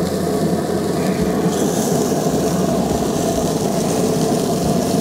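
Steady machine running noise, with a brighter hiss joining about one and a half seconds in.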